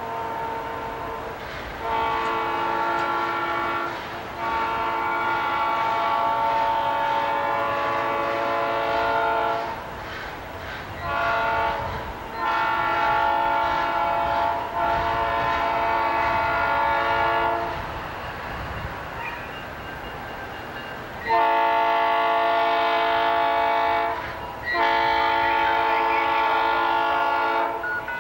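Diesel locomotive air horn sounding the grade-crossing signal as the train approaches: two long blasts, a short one and a long one, then two more long blasts near the end as the pattern starts again. A low rumble of the train runs under it.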